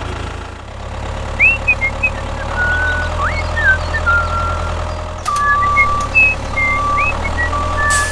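A vehicle engine running steadily with a low hum, with short high chirps and whistles sounding over it and a longer steady high tone in the second half.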